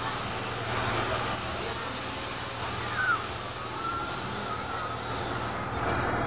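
Spinning kiddie airplane ride running: a steady hiss of air over a low machine hum, with a short rising squeak about halfway through. The high part of the hiss dies away near the end.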